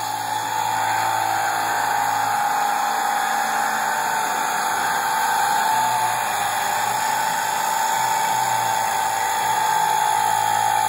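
Small electric air compressor of a motorcycle air-horn kit running with a steady whine, refilling the horn's air tank after the horn has been blown.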